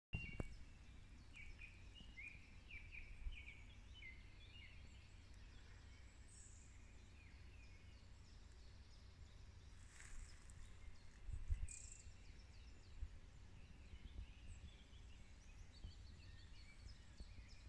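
Faint birdsong: short chirping notes, busiest in the first few seconds and again near the end, over a low rumble on the microphone, with a low thump about eleven seconds in.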